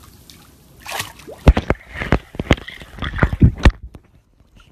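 Pool water sloshing and splashing around a swimming dog, with a quick run of sharp, loud knocks and thumps close to the microphone; it all cuts off suddenly near the end.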